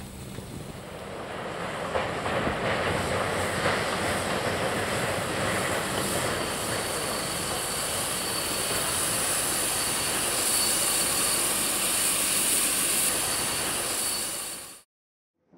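Steam locomotive hauling a passenger train running close by: a steady noisy rush of the moving train that swells over the first two to three seconds, with a thin high steady squeal through most of it. The sound cuts off abruptly near the end.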